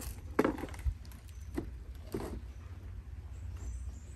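A green plastic crate of collected plastic trash being handled and tipped out: a few short knocks and rustles of plastic over a steady low rumble.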